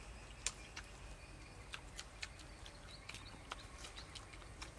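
Faint, irregular mouth clicks and smacks of people chewing braised pig intestine and eggs, with short pauses between them.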